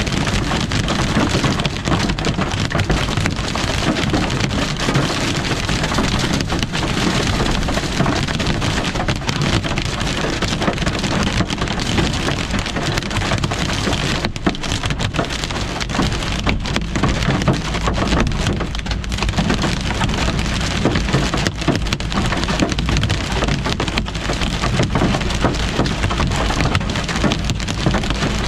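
Heavy rain and hail pelting a car's roof and windshield, heard from inside the car: a dense, steady patter of impacts over a low rumble.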